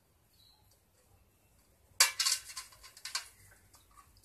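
A fidget spinner bearing and fingers knocking against a steel bowl of water while the bearing is washed by hand. A quick run of clinks and splashy clatter starts about two seconds in and lasts about a second, followed by a few fainter clicks.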